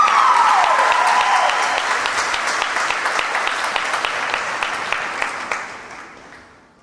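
Audience applauding and cheering, with one high whoop that rises and falls at the start and one person's claps standing out at about three to four a second. The applause fades out near the end.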